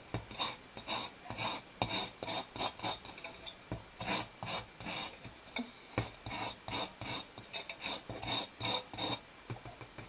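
A sanding block rubbing against the wires of a metal birdcage in quick, uneven rasping strokes, two or three a second, with a short pause about three seconds in. It is scuffing light rust off the metal so that paint will grip.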